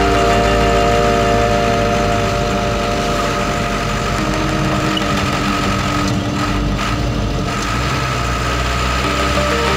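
Truck engine running steadily with a low rumble, heard from inside the cab while driving.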